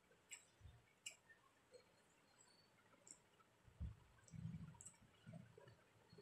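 Faint eating sounds: small scattered clicks as fingers mix rice on a plate, with a few soft low chewing sounds about four to five seconds in.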